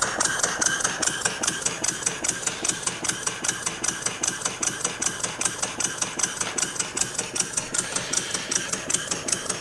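Restored American Model Quarter Horse single-cylinder stationary steam engine running on compressed air instead of steam, its exhaust giving an even chuffing beat of about five puffs a second.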